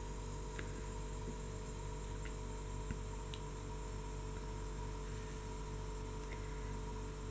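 Steady low electrical mains hum with hiss from the recording chain, with a few faint clicks.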